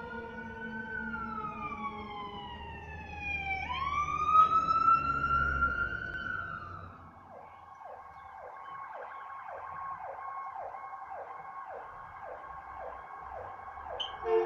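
Emergency vehicle sirens. A wailing siren falls in pitch, then sweeps back up about four seconds in and fades. After that a fainter siren cycles quickly, about twice a second.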